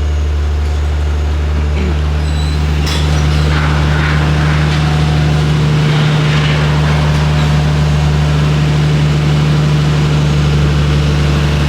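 Nissan Skyline R34's straight-six idling steadily while warming up just after starting, running smoothly on new OEM coil packs: the misfire appears cured. About three seconds in there is a click and the idle gets a little louder.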